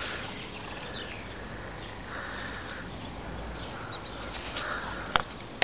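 Rustling grass and hand-handling noise close to the microphone while a caught fish is picked up, with one sharp click about five seconds in.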